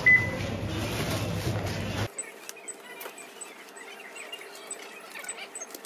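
Supermarket checkout sounds: a barcode scanner's short high beep right at the start, over dense background noise. About two seconds in, the full, low sound drops away abruptly, leaving quieter light clicks and tiny high blips.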